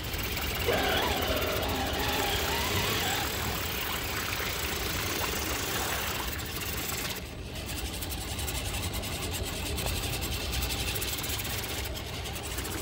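Radio-controlled 4x4 scale trucks' electric motors and gear drivetrains whining as they drive through mud and water, with a steady churning wash of splashing. A rising motor whine about a second in, and a brief lull a little past seven seconds.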